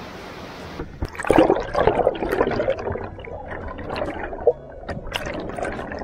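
Waterfall roar for under a second, then, after an abrupt change, close water splashing and gurgling in uneven, loud surges.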